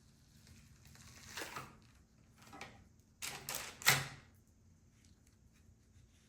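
Handling of a 3D-printed plastic mold and the cured silicone: a few short scrapes and clicks, with a cluster of louder clacks ending in a sharp knock about four seconds in.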